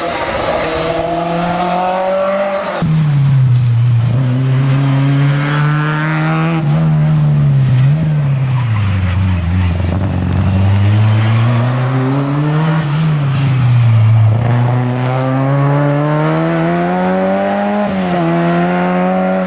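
Historic rally car engine at high revs on a special stage, its pitch climbing through the gears and dropping back repeatedly as the driver lifts and shifts. The engine note changes abruptly about three seconds in.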